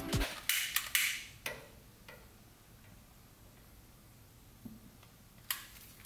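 A few short clicks and taps of hands handling things in and around a microwave oven, four in the first two seconds and one sharper click near the end, with near quiet between.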